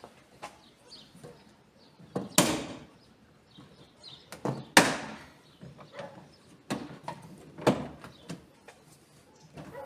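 Plastic retaining clips of a VW Golf Mk6 boot lid trim panel snapping free as the panel is pried off with a screwdriver: four sharp pops, the loudest about five seconds in, with lighter clicks and rattles of the panel between them.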